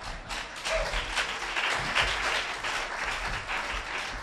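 Audience applauding: many hands clapping, building to a peak about halfway through and then slowly dying away.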